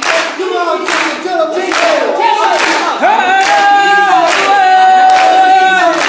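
All-male a cappella group singing in harmony, with a long held note in the second half, while the singers clap their hands on the beat a little more than once a second.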